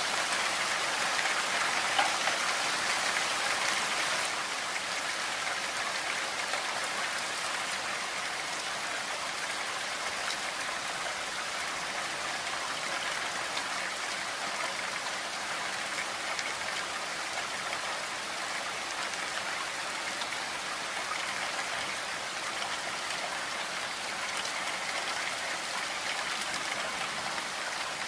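Heavy rain falling steadily, a dense even hiss, a little louder for the first few seconds.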